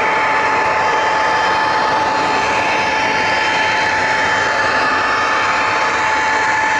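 HO scale model train carrying the camera along the track: a steady rolling rush of wheel and gear noise with a constant high whine.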